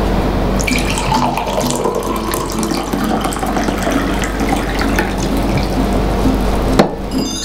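Tea pouring from a glass teapot into a ceramic cup, a steady splashing stream that stops abruptly near the end.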